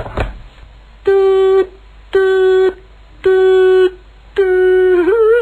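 Telephone tone after an unreachable-number message: four steady, even beeps about a second apart, the last one wavering in pitch near its end.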